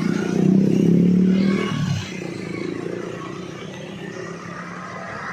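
A bus going past close by: a loud low engine sound for about two seconds that drops in pitch and falls away, leaving a quieter rumble of traffic.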